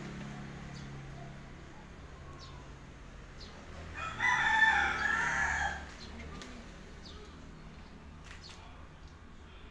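A rooster crows once, about four seconds in. The call lasts nearly two seconds.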